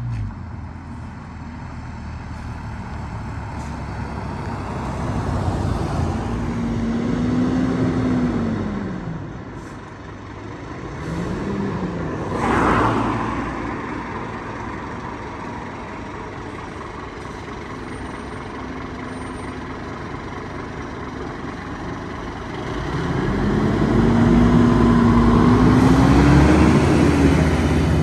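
Heavy emergency vehicles driving by: engine note runs up in pitch and back down twice as they accelerate and pass. The louder run, near the end, is a fire engine's diesel passing close. A short rush of noise comes about halfway through.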